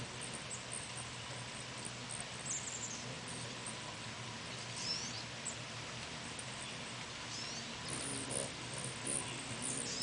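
Hummingbirds giving short, high, squeaky chip and chitter calls a handful of times over a steady background hiss.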